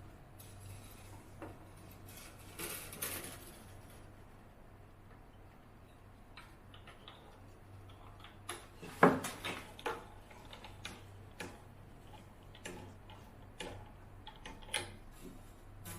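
Scattered small clicks and taps from things being handled, with one louder knock about nine seconds in, over a faint steady low hum.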